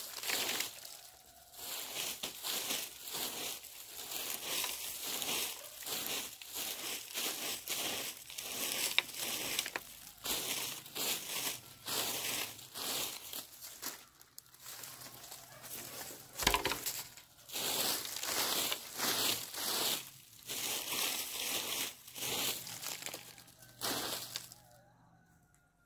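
Dry crunching and rustling in quick, irregular strokes, two or three a second, stopping about a second before the end.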